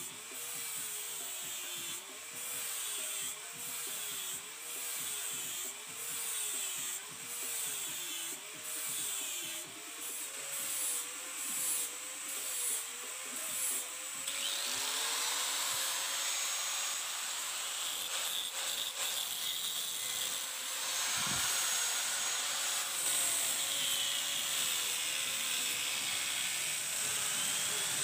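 Electric power tool working a steel machete blade. Its motor pitch dips and recovers about once a second as it is pressed on and eased off the steel. From about halfway through, a steady grinding hiss takes over.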